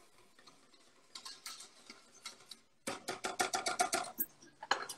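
Wire whisk clicking against the side of a stainless steel pot while stirring a thick roux of butter and flour as it cooks. The clicks are faint and scattered at first, then come in a quick run of about eight a second through the middle, with a last couple near the end.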